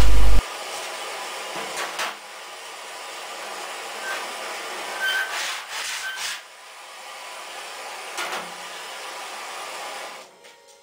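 Scattered light knocks and taps of hand tools being handled and set down on a sheet-steel van door panel, over a steady hiss that stops near the end.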